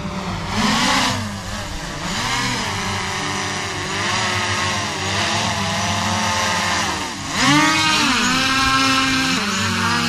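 Quadcopter drone's electric motors and propellers whining, the pitch rising and falling again and again as the drone is flown back in, loudest about a second in and again from about seven and a half seconds on.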